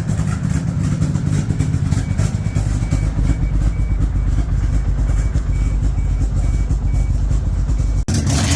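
Vehicle engine running steadily with a rapid low exhaust pulse, the owner's sign that it still has exhaust leaks. The sound cuts off suddenly near the end.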